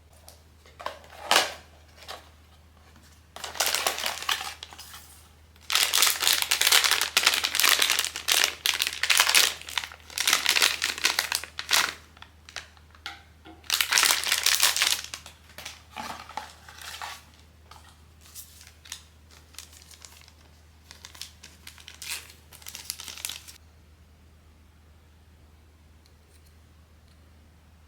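Blind-box plastic packaging crinkling and rustling as it is handled and torn open, in irregular bursts that are loudest in the middle and die away near the end.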